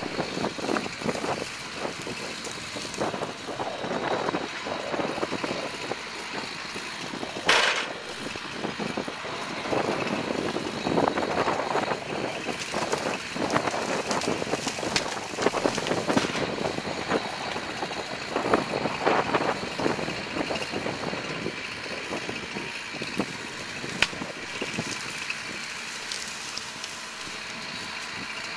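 Tracked excavator's diesel engine running while its grab drags felled hazel coppice stems out of a hedgerow, the brush crackling and rustling throughout, with a few sharper snaps of breaking wood.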